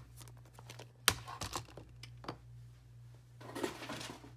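Small sharp clicks and taps of clear photopolymer stamps and acrylic stamping blocks being handled on a desk. The loudest click comes about a second in, with a quick run of lighter clicks right after it and another tap a little later. A short scratchy rustle follows near the end.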